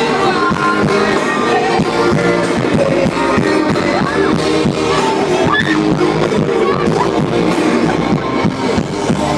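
Live pop-rock band playing with singing over guitars and drums keeping a steady beat.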